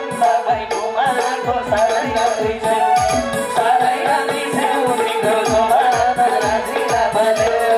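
Live Nepali dohori folk music in an instrumental passage: drum strokes that drop in pitch, about two or three a second, under a wavering melody line.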